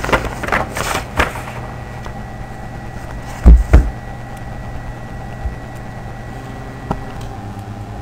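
Steady low electrical hum and hiss, with a few light clicks in the first second and a half and a dull thump, the loudest sound, about three and a half seconds in.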